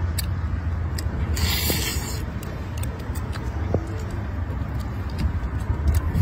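Sucking and slurping of crab meat from the shell, with a short hissing slurp about a second and a half in and scattered small clicks, over a steady low rumble.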